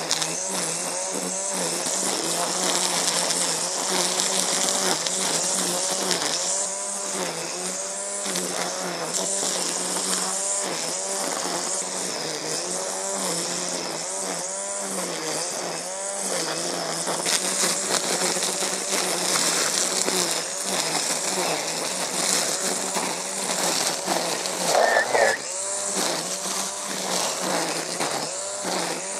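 Husqvarna Aspire 18-volt cordless line trimmer running while its nylon line cuts grass, weeds and perennial stems. The motor's whine rises and falls in pitch again and again as the line bites into the growth, with a brief louder burst near the end.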